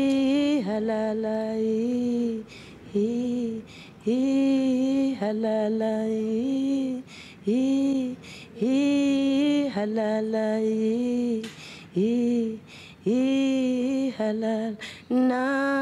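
A woman singing unaccompanied, a slow song in an African language with long held notes, each phrase swooping up into its first note, with short breaths between phrases.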